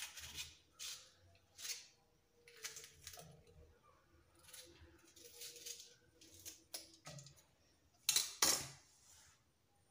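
Kitchen knife slitting green chillies lengthwise over a clay pot: short, faint, crisp cutting scrapes about once a second. There is a louder double scrape about 8 seconds in.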